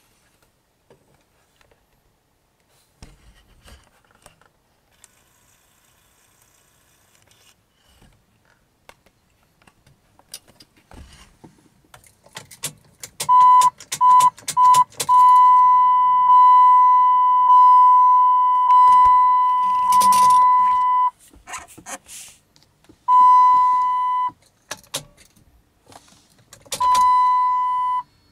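Keys rattling and clicking, then the car's dashboard warning chime sounding a high steady tone. It comes first in a few short beeps, then holds for several seconds at a time, stopping and starting again twice.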